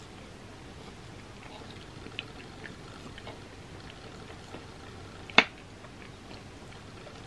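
Metal spoon clinking and scraping against a glass pie dish as it cuts into a pie, with small clicks throughout and one sharp clink about five seconds in. Soft chewing sounds.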